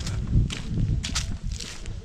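Footsteps of a hiker walking, a few separate steps over a low rumble.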